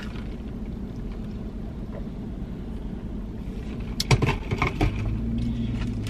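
Steady low rumble of a car idling, heard inside the cabin. About four seconds in comes a short run of crackling and clicks as a paper food box and its contents are handled, followed by a low steady hum.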